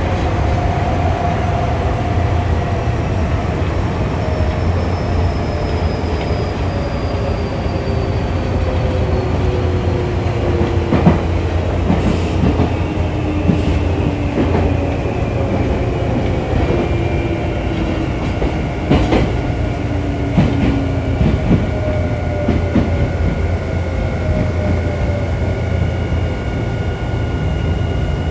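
Nankai 6200 series electric multiple unit running and slowing. Its traction motor whine falls steadily in pitch, with a few rail-joint clacks partway through and a steady high-pitched wheel squeal joining in the second half.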